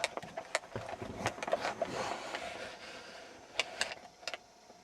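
A dozen or so sharp metallic clicks and light rattles, irregularly spaced, from handling a Club steering-wheel lock.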